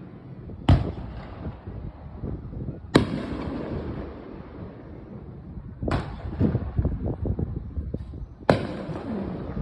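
Aerial fireworks bursting: four sharp bangs, one every two and a half to three seconds. A patter of crackling follows the third.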